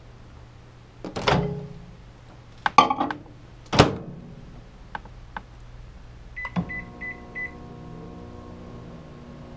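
Hamilton Beach microwave oven: a few loud clunks from the oven being handled, then several short keypad beeps about six and a half seconds in. After that the oven starts and runs with a steady hum.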